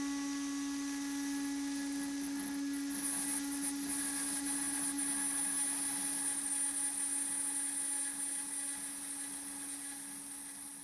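CNCDepot S30C 2.2 kW high-speed spindle on an Avid CNC Benchtop Pro running at a steady pitch while an end mill slots aluminum. A high-pitched squeal joins about three seconds in as aluminum chips pack into the slot and weld onto the end mill.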